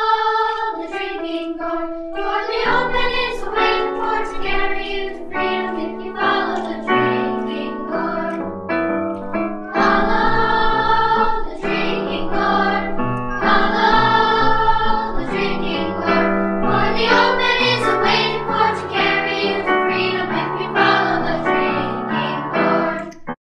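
Music with voices singing together, held notes moving from one pitch to the next; it cuts off abruptly near the end.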